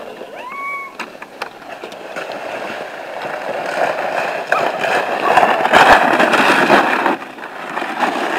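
Blue plastic sled sliding down packed snow with a child aboard: a scraping hiss that grows louder as it comes closer, loudest a few seconds in, then dies away as the sled stops. A short high squeak about half a second in.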